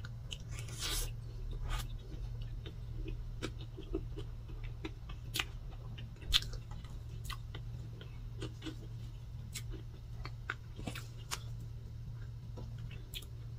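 Close-up eating sounds from someone working through soft chocolate cream cake with a metal fork: moist chewing and lip smacks, broken by scattered sharp clicks of the fork every second or so.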